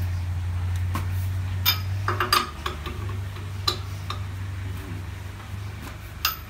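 Sharp metal clinks of a lug wrench working on a wheel's lug nuts as they are tightened, a few irregularly spaced strikes. A steady low hum runs underneath.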